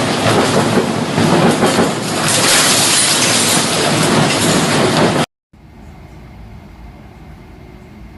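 Strong typhoon wind, a loud steady rushing noise. It cuts off abruptly about five seconds in, and a much quieter steady rush follows.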